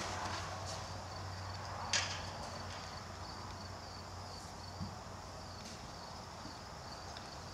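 Steady low hum and hiss of background noise, with one sharp click about two seconds in.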